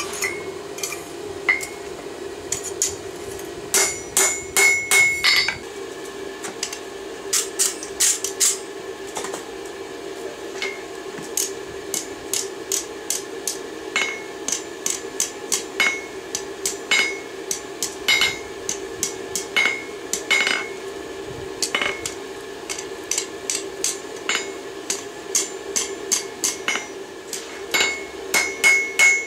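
Ball-peen hammer striking hot railroad-spike steel on a Peddinghaus anvil, in runs of quick blows with short pauses between, many strikes leaving a clear anvil ring. A steady hum runs underneath.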